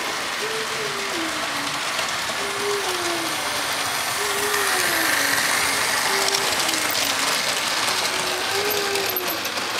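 Model railway running: a steady mechanical whir and rattle of small electric train motors and wheels on the track. A short falling tone repeats about every two seconds.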